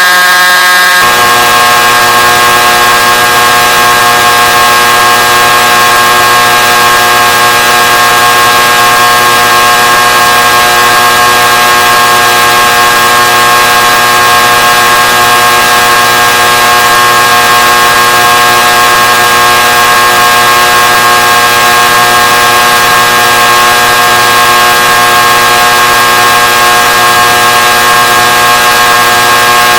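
Vocoder sound effect: a loud, steady electronic tone of many pitches sounding together, held unchanged, with its lowest notes coming in about a second in.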